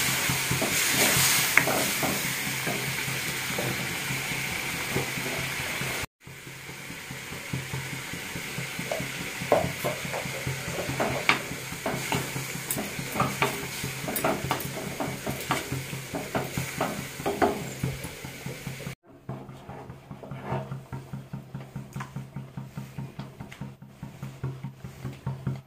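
A wooden spoon stirring a sizzling, bubbling curry in an iron kadai, knocking and scraping against the pan. From about 19 s in there are quieter, fairly regular spoon ticks as the curry is spooned into a clay pot.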